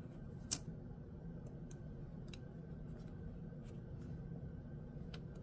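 Gao Studio Magnetic Master 2.0 magnetic fidget being handled: one sharp click about half a second in, then a few fainter clicks at irregular intervals, over a low steady background hum.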